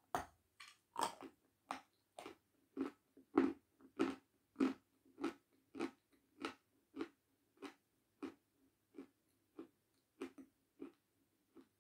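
A person biting into a hard white chalk-like block and chewing it with loud crunches: one bite right at the start, then a steady run of crunchy chews, about three every two seconds, loudest in the first half and fading toward the end.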